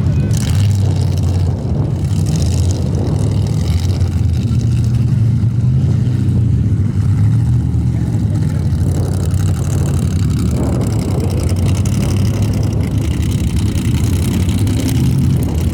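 Formula offroad race buggy's engine running hard under load, loud and steady, with little change in pitch.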